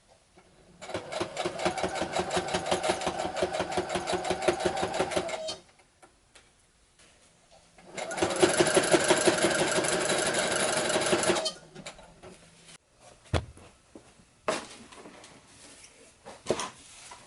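Sewing machine stitching a zigzag seam in two runs of rapid stitching, the first about four and a half seconds long and the second about three and a half, followed by a few sharp clicks.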